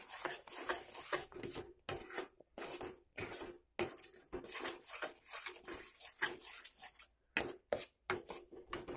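Spatula stirring thick gram-flour and sugar-syrup batter in a pan, scraping and sloshing in repeated short strokes with brief gaps between them.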